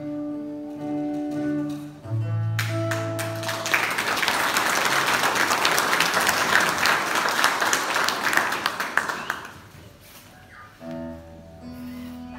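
Acoustic guitar notes ringing out. Then, from about two and a half seconds in, audience applause for roughly seven seconds, the loudest sound here. The guitar comes back with single picked notes near the end.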